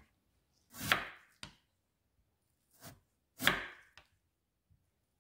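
Chef's knife slicing through a block of Korean radish onto a wooden cutting board: two loud cuts, about a second and three and a half seconds in, with a few lighter knocks between them.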